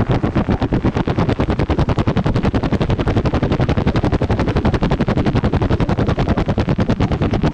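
Electric motor and propeller of an E-flite Turbo Timber Evolution RC plane in flight, mixed with wind buffeting on an onboard camera. The sound pulses rapidly and evenly, about ten pulses a second.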